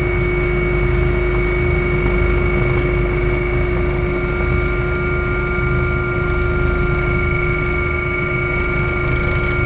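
Helicopter cabin noise as heard from inside: a loud, steady low rumble from the rotor and engines with several high, steady whining tones from the turbines and gearbox, the helicopter low over the landing pad at the end of its approach.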